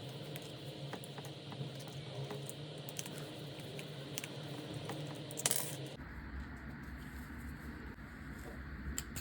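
Light clicks and taps of a damaged AC plug being taken apart by hand, with one louder rattle about five and a half seconds in.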